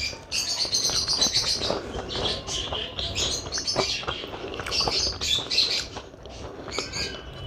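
Pet budgerigars and lovebirds chirping and chattering in quick, overlapping calls, heard from a neighbouring balcony.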